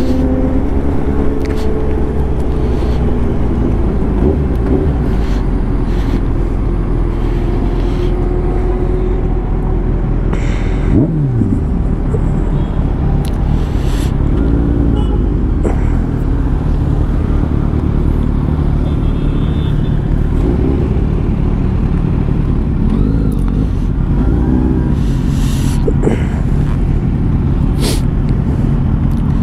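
Kawasaki Ninja 1000SX inline-four engine slowing down and then idling steadily at a standstill. A quick falling pitch comes about eleven seconds in.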